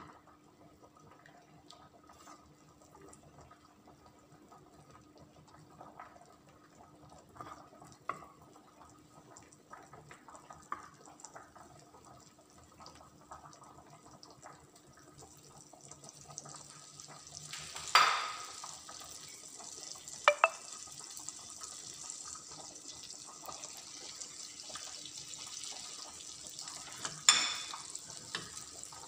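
Wooden spatula scraping and tapping in a stainless steel pan of melting butter. A loud knock about two-thirds through is followed by a chicken breast sizzling steadily in the hot butter, with a few more knocks near the end.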